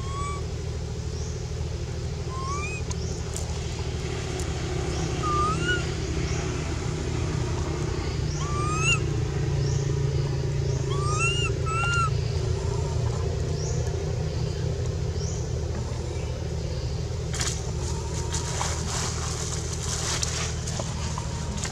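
A steady low motor hum, with a short rising squeaky call repeated every two to three seconds through the first half. Rustling of dry leaves near the end.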